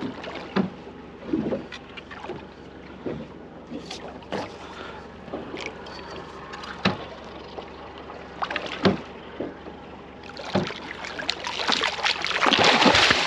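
Scattered knocks and clicks on a boat, then, in the last few seconds, a loud burst of splashing as a hooked Spanish mackerel thrashes at the surface beside the hull.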